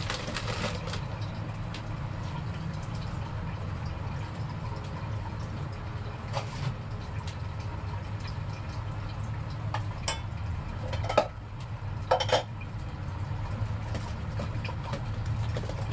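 Kitchen work sounds over a steady low hum: a few short clinks and knocks of pots, dishes and utensils, the loudest two about three-quarters of the way through.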